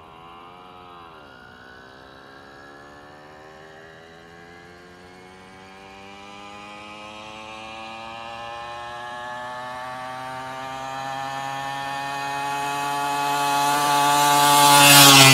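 Tomos 50cc two-stroke moped with a Homoet tuning exhaust ridden flat out toward and past the listener. Its high engine note dips once about a second in, then climbs steadily in pitch and loudness. It is quite loud at its peak near the end, as it passes close and the pitch drops.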